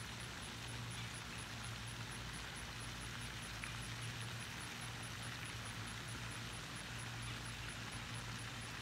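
Steady low mechanical hum under a constant hiss, with a faint high ticking about five times a second.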